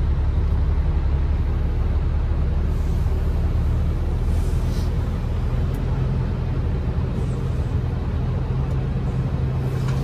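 Heavily loaded truck's diesel engine running under load, heard from inside the cab, its note rising about halfway through as it pulls away. A short hiss comes near the middle.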